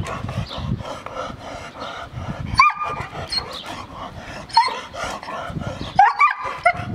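Seven-month-old German Shepherd puppy giving short, high-pitched yips: one about two and a half seconds in, another about two seconds later, then a quick run of them near the end, with scuffling between.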